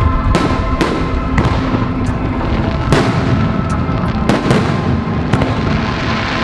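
Aerial fireworks exploding close by: a string of sharp cracks at irregular intervals. Music with steady held notes plays underneath.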